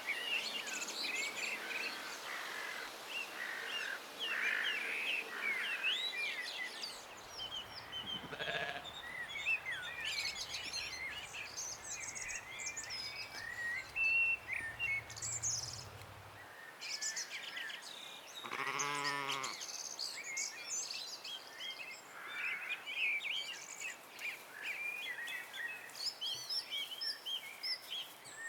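Songbirds chirping and trilling continuously, with a sheep bleating once, a single wavering call lasting about a second, around two-thirds of the way through.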